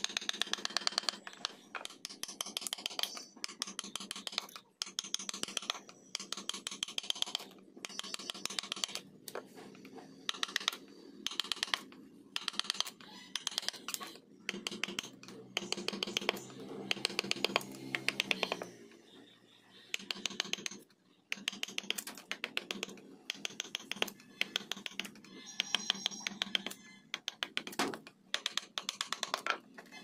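Wood-carving chisel cutting into a teak plank: runs of rapid, crisp clicks and scratches as the blade is worked through the wood, in bursts with short pauses between.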